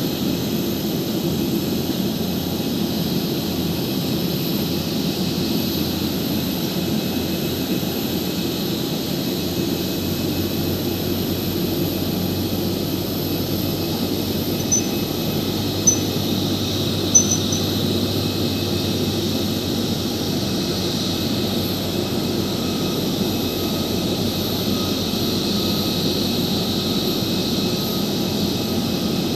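Airliner jet engines running steadily during an Airbus pushback on the apron, a constant low rumble under a high hiss. A few brief high beeps sound about halfway through.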